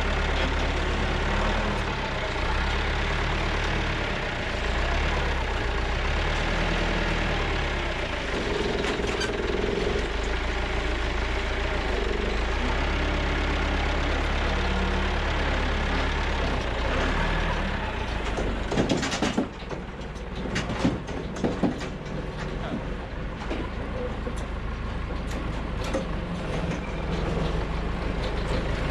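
Tractor engine running steadily with a heavy low hum. About two-thirds of the way through, the hum drops and a string of sharp knocks and clicks follows.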